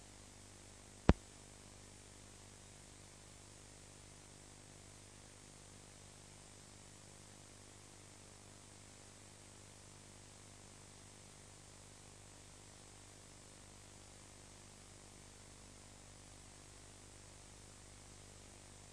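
Steady hiss and a low hum from the blank end of a VHS tape being played back, broken by one sharp click about a second in.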